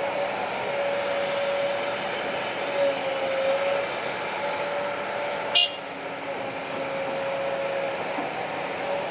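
Heavy diesel earthmoving machinery running steadily with a high whine over the engine noise, and a single sharp metallic clank about five and a half seconds in.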